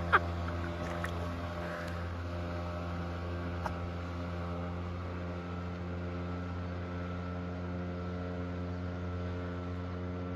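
A 5 hp outboard motor running at a steady, unchanging speed, with a faint click about four seconds in.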